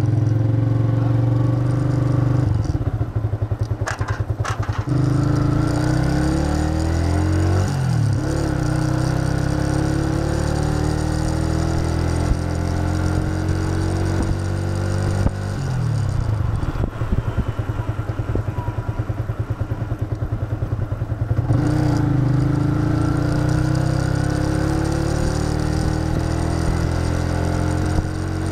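Yamaha FZ150i motorcycle's single-cylinder four-stroke engine under way. Its note climbs steadily several times as the bike pulls through the gears, with drops between the climbs.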